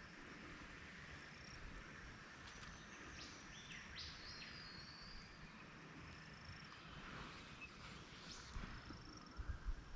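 Faint outdoor bush ambience: birds calling with a few short whistled notes and chirps a few seconds in, over a steady high insect-like hiss. Low rumbles come in near the end.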